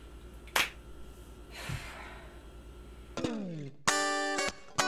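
A sharp click, then a woman's breathy sigh, then guitar music starting about three seconds in with a falling slide and loud chords.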